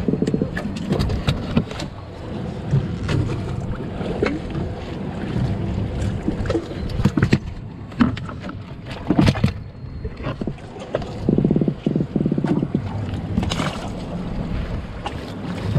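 Wind buffeting the microphone aboard a fishing boat, with scattered knocks and clatter of gear on the deck. There is a brief rapid buzzing rattle right at the start and again about two-thirds of the way through.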